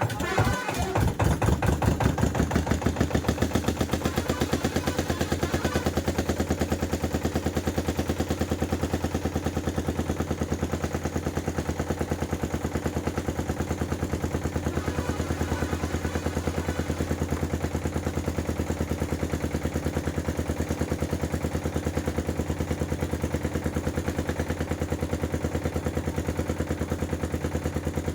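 Boat engine starting up and settling into a steady run, a rapid, even chugging that swells over the first couple of seconds and then holds.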